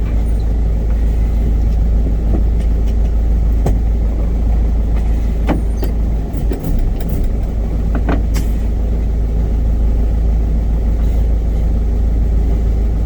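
Hyundai truck being driven, heard on board: a heavy, steady low rumble of engine and road noise, with scattered short knocks and rattles.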